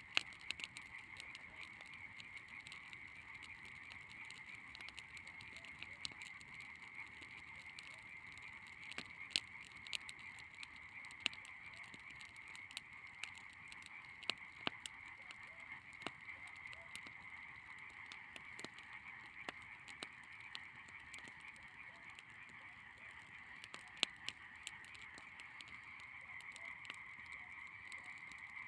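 Burning dry branches crackling in a bonfire with scattered sharp pops, over a steady trilling chorus of frogs.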